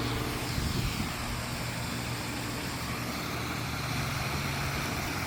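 Steady rush of a small waterfall, with a low, steady engine hum underneath.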